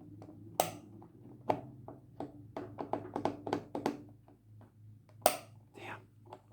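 Puzzle box being worked and prodded by hand and with a tool: a run of small clicks, taps and knocks, busiest in the middle, with two sharper clicks about half a second in and near the end.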